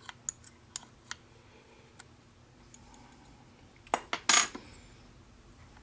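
Metal wrenches clicking and clinking against the nuts of a levelling screw as they are worked. A few light ticks come in the first two seconds, then a louder cluster of clinks about four seconds in, the last ringing briefly.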